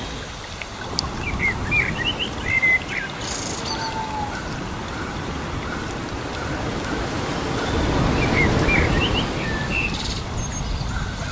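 Birds chirping in quick high calls, in two clusters about two and nine seconds in, over a steady rushing noise.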